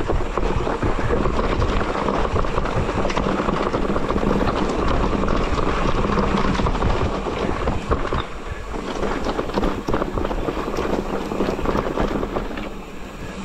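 Electric mountain bike running over a rough, loose rocky track: continuous clattering and rattling of tyres and bike on stones, mixed with heavy wind noise on the microphone. It quietens somewhat in the last few seconds.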